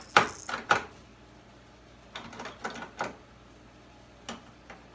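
Mechanical clicks and clunks from a 1965 Ford Mustang door handle and latch being worked repeatedly without the door releasing: a worn door latch rod bushing keeps the handle plunger from actuating the latch. There are two sharp clicks at the start, a quick run of them about two to three seconds in, and two more near the end.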